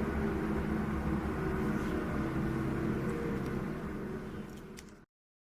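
Steady low mechanical hum of background noise, with a few steady tones in it; it fades and then cuts off to silence about five seconds in.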